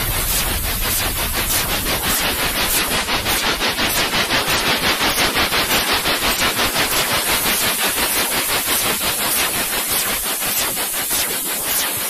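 White-noise hiss for lulling a baby to sleep, loud and steady in pitch but pulsing rapidly in level, several pulses a second.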